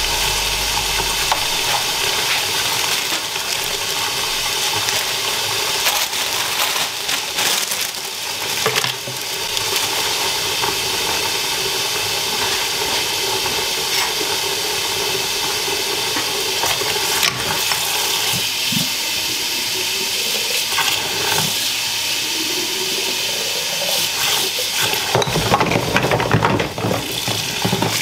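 Water running steadily from a kitchen tap as the glass spice jars are washed, with occasional clinks and knocks.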